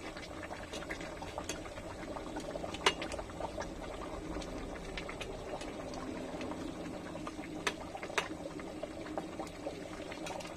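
Fish curry bubbling steadily in an aluminium pot, with a few sharp clicks of a metal ladle against the pot as gravy is spooned over the fish pieces.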